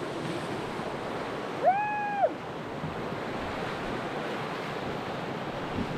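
Whitewater rapids rushing steadily around an inflatable raft. About two seconds in, a short high whine rises, holds and falls away.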